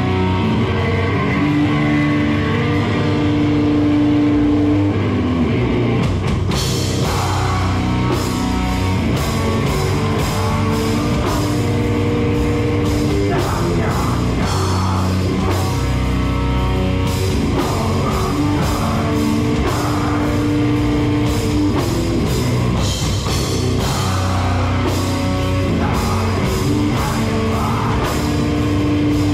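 Live heavy metal band playing. The electric guitar rings out alone for the first few seconds, then the full drum kit with cymbals comes in about six seconds in, and the band plays on at full volume.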